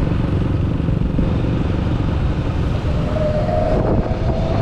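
Motorcycle running steadily on the road, with engine, road and wind noise; a faint thin whine joins about three seconds in.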